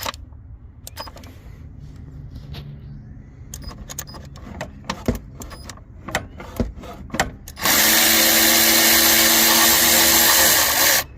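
Several light clicks and taps of tools being handled, then a handheld power driver runs steadily for about three seconds near the end, spinning out the 10 mm bolt that holds a VANOS camshaft solenoid on the engine.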